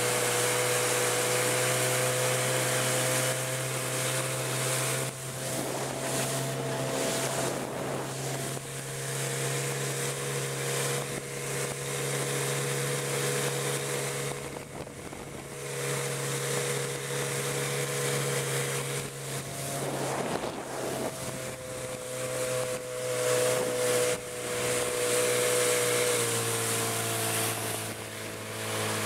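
Evinrude Sportwin 9.5 two-cylinder two-stroke outboard motor running under way, its engine note dipping and shifting a few times, with wind on the microphone.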